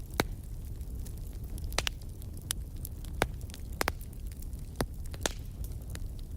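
Wood fire burning in a fireplace: a steady low rumble of flames with sharp, irregular crackles and pops every half second or so.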